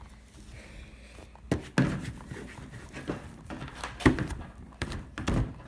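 Handling noises: a series of soft knocks and thuds, starting about one and a half seconds in and recurring irregularly.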